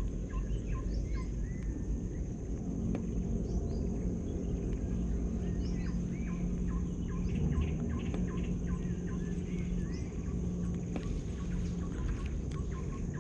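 Birds chirping and a steady high insect drone over a low steady rumble, with faint, evenly spaced ticking from a spinning reel being cranked at the start and again near the end.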